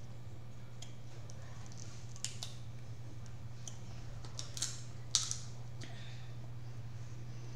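Scattered sharp clicks and small cracks of crab shells and utensils being handled while eating a seafood boil, the loudest about five seconds in, over a steady low electrical hum.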